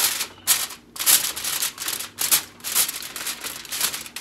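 Aluminum foil crinkling in irregular bursts as hands press and crimp it down over the edges of a baking dish.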